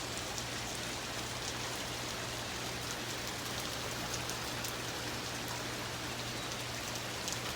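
Heavy rain pouring down steadily, a dense even hiss with scattered faint drop ticks.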